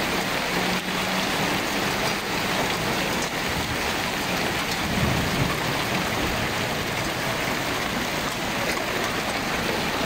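Heavy rain mixed with hail falling on the street, grass and parked cars: a dense, steady patter with no let-up.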